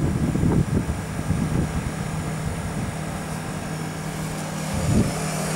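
EasyCold refrigeration condensing unit running: a steady mains hum from its compressor and condenser fan, which settles about two seconds in after an uneven low rumble. There is a short bump about five seconds in.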